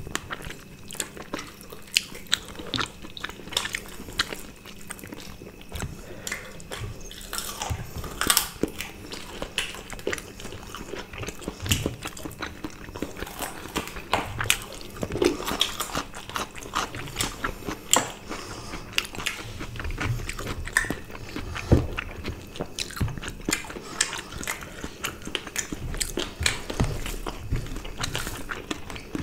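Two people eating rice, curry and roast chicken with their hands, close to the microphone: steady chewing and biting with many short wet smacks and clicks.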